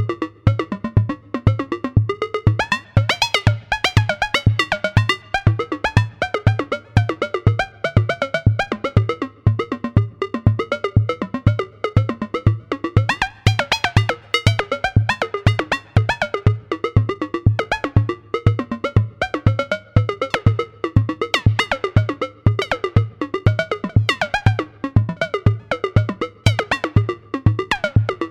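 Modular synthesizer patch built around the ST Modular Boba Fett module: a steady electronic kick drum about twice a second under a fast sequence of short, plucky synth notes.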